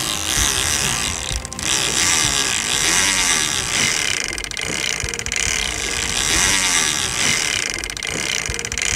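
Big-game fishing reel's spool spinning freely as line pays out, its clicker ratchet giving a fast continuous buzz.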